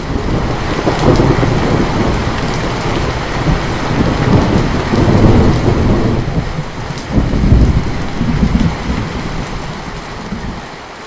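Heavy rain falling steadily, with a long roll of thunder rumbling over it that swells several times and fades away near the end.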